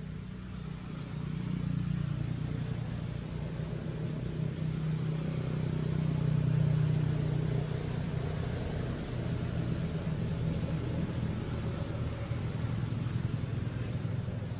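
A motor vehicle's engine running, a steady low hum that grows louder over the first six seconds or so and then eases slightly.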